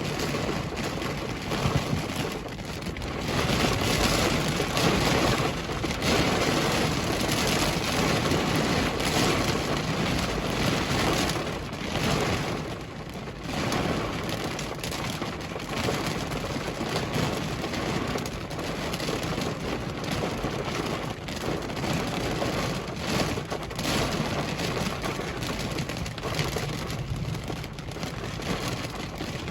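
Heavy rain from a severe thunderstorm pounding on the car, a dense steady hiss that swells and eases in waves, with a brief lull about halfway through.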